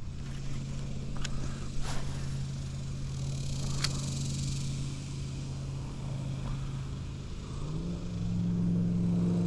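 A motor running steadily with a low hum, its pitch stepping up near the end, with a few faint clicks in the first seconds.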